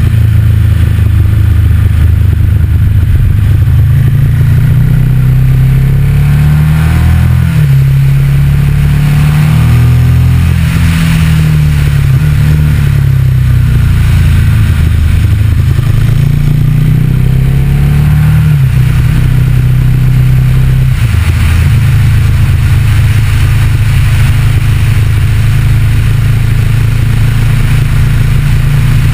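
Motorcycle engine running under way, with its pitch rising and falling through several changes of engine speed in the middle of the stretch, then holding steady near the end.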